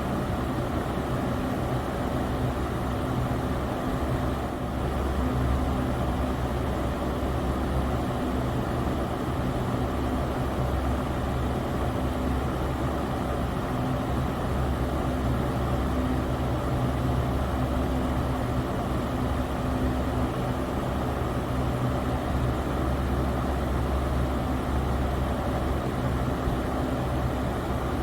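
Electric fan running steadily: an even whoosh of moving air over a low motor hum.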